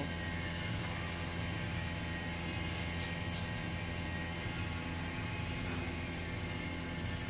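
Air-conditioner compressor running with a steady low hum. It is drawing about 12 amps against its 8.2 amp rating, with low suction pressure and an iced suction line, which the technician takes for a flooded, faulty compressor.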